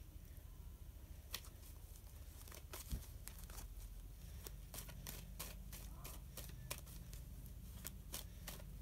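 Tarot cards being shuffled and handled: faint scattered clicks and snaps of card edges, coming thicker in the second half, with one louder soft knock about three seconds in, over a low steady hum.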